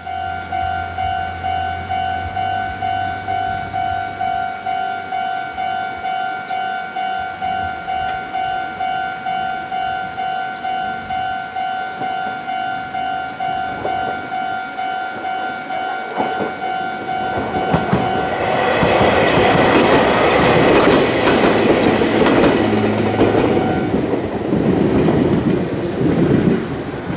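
Japanese railway level-crossing alarm ringing a steady two-tone-a-second electronic clang. From about 17 seconds in, a Meitetsu electric train passes over the crossing with a loud rumble of wheels and rail-joint clicks. The alarm stops a few seconds before the train has gone by.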